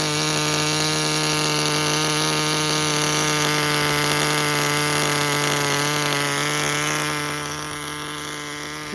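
Tamiya TGS-R nitro RC car's small glow-fuel engine running at steady high revs with a constant pitch, getting somewhat quieter about seven seconds in. The engine is running very hot, and the owner suspects it is damaged.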